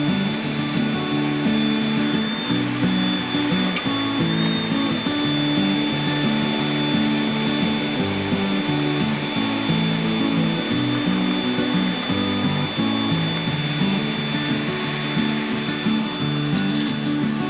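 Background music with a changing low melody, over a vacuum cleaner's motor running steadily with a high whine.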